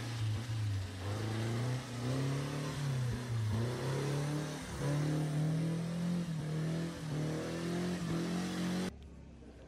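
Racing car engine accelerating hard through the gears, its pitch climbing in steps with short dips at each gear change. The engine sound cuts off suddenly near the end.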